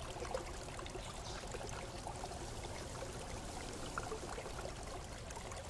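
Low, steady background hiss with a few faint ticks: the recording's own noise bed.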